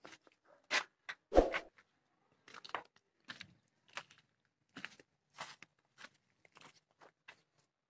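Footsteps crunching on gritty, debris-strewn ground, a short crunch roughly every half second to second, with one heavier thump about a second and a half in.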